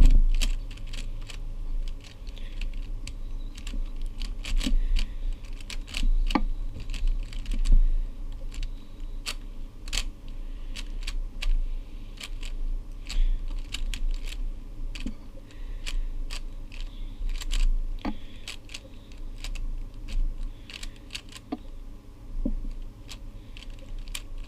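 Plastic YJ Guanlong 3x3 speedcube being turned by hand, its layers clicking and clacking in quick, irregular runs of turns.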